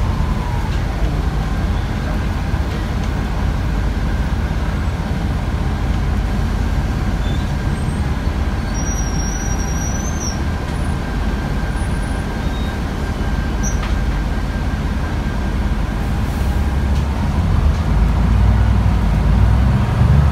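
Inside a Mercedes-Benz O405G articulated diesel bus under way: steady engine and road rumble, with a thin steady whine through most of it. The low rumble grows louder near the end.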